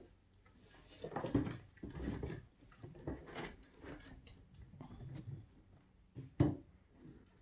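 A cat and kitten playing about a metal floor lamp: a run of irregular scuffles and soft knocks, with a sharp knock near the end.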